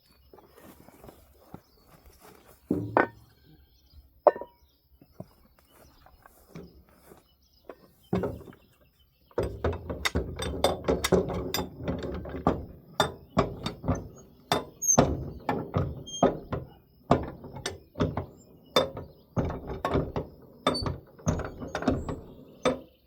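Railroad jack being worked, its ratchet mechanism clicking and clanking as it raises the trailer. A few separate knocks come first, then a long run of quick jacking strokes starts about nine seconds in.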